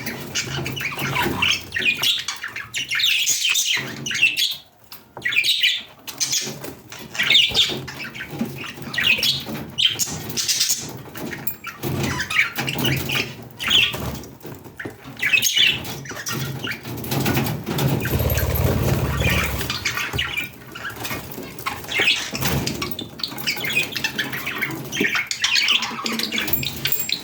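Budgerigars chirping and squawking in quick, irregular bursts of chatter. A low rumbling noise sits under the calls for a couple of seconds about two-thirds of the way through.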